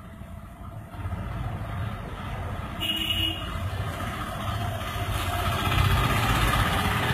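Street traffic: a motor vehicle's engine running and growing louder, with a short high beep about three seconds in.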